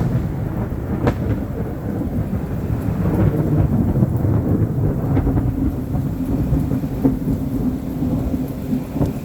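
Heavy rain pouring down with a continuous low rumble of thunder.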